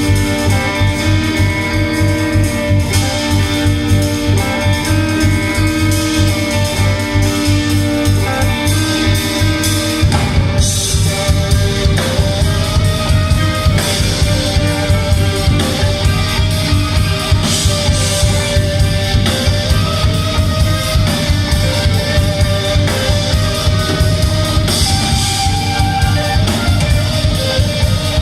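Band music with guitars over a drum kit and bass keeping a steady beat; the bass line and arrangement change about ten seconds in.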